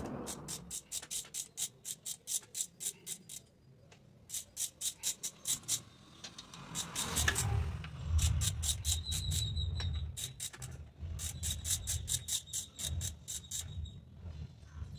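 Ratchet wrench clicking in quick runs of several clicks a second as bolts on the pump head of a small air compressor are turned, with short pauses between runs.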